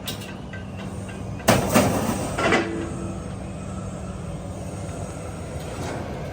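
Magnet crane working scrap steel out of a trailer: its engine runs steadily under metal scraping and clanking, with a couple of sharp metal bangs about a second and a half in.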